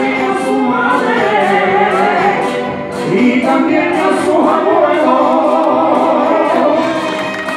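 A man singing a flamenco-style alborada through a microphone and PA, his voice wavering and ornamented over an accompaniment with a light regular beat.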